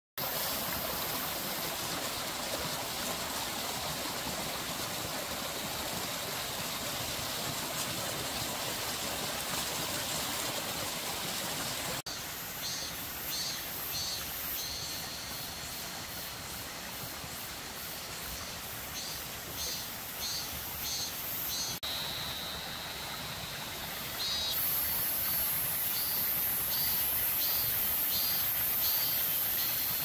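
Stream water flowing in a steady rush. After about twelve seconds the water drops quieter and a high pulsing call repeats about twice a second, with a high hiss coming up near the end.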